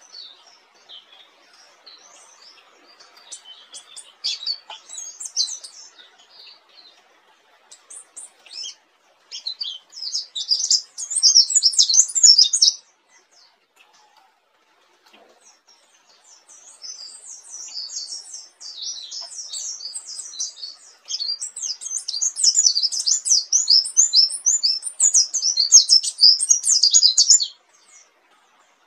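Pleci dakun white-eye singing its rolling song ('ngerol'), a fast twittering run of high notes. Scattered chirps lead into a short burst of song about ten seconds in. After a pause, a long unbroken run builds and stops shortly before the end.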